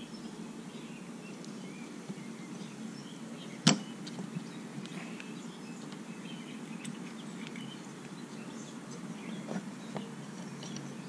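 Hands handling small brake master cylinder parts: one sharp click a little under four seconds in and a few faint ticks later, over a steady low hum.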